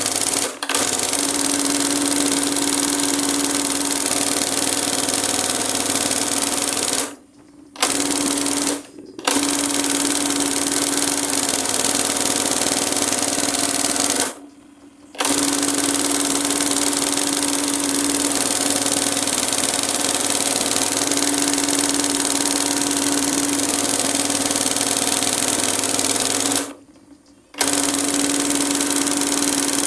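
Embroidery machine running at speed, stitching gold cord onto fabric: a loud, steady mechanical clatter with a constant hum. It stops four times for under a second and starts up again each time, as the operator moves the fabric by hand.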